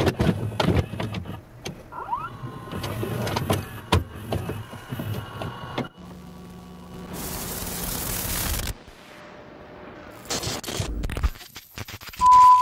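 Video-recorder tape sound effect: a series of clicks and clunks with a small motor whirring as a VHS cassette loads and starts playing, then a burst of tape static hiss. Near the end a loud steady test-card tone begins.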